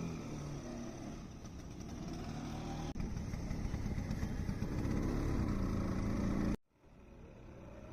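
1969 Vespa 150's two-stroke single-cylinder engine running as the scooter is ridden, its pitch rising twice with the throttle. The sound cuts out abruptly near the end and then builds back up.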